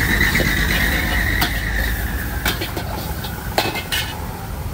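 Metal spatula clinking and scraping against a large steel wok as vegetables are stir-fried, with a few sharp clinks in the second half. Underneath are a steady low rumble and a steady high whine that fades out about halfway through.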